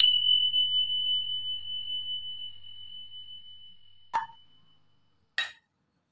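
A single bell-like ding: one clear high tone struck at once and fading out over about five seconds. A short click comes near the end, then a brief scrape.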